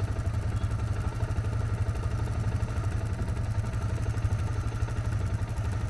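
Yamaha Grizzly ATV's single-cylinder engine running steadily in the river, with a fast even pulse.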